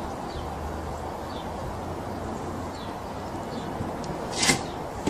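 Outdoor background noise: a steady low hum like distant traffic, with a few faint, short high chirps. About four and a half seconds in there is one brief, sharp noise.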